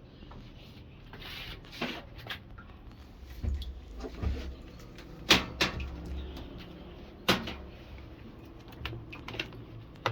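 Scattered clicks and low knocks from hands working a washing machine's controls and panel as it is powered on. Two sharp clicks about five and seven seconds in are the loudest.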